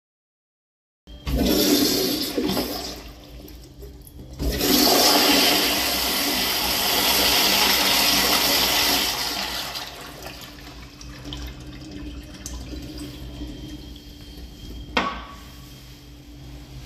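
American Standard Afwall wall-hung toilet flushing through its flushometer valve. A loud rush of water cuts in about a second in, surges again and then tapers to a quieter flow as the bowl refills. There is a single sharp knock near the end.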